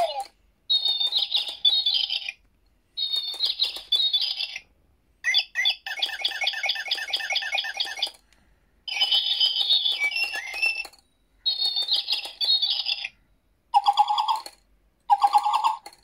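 A sound-activated toy birdcage plays electronic bird chirps in repeated phrases of one to two seconds each, separated by short pauses.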